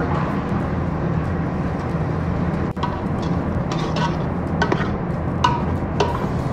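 A metal spoon stirring tomato masala in a steel cooking pot, giving a few sharp scrapes and ringing clinks against the pot in the second half, over a steady low kitchen rumble.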